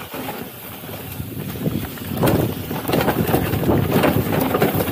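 Mountain bike rolling downhill on a dirt forest trail: tyres rumbling over dirt and leaf litter and the bike rattling over bumps, with wind buffeting the microphone. It grows louder about two seconds in.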